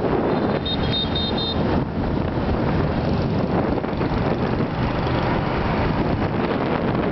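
Wind buffeting the microphone and road noise on a moving motorbike, with a quick run of short, high horn beeps about a second in.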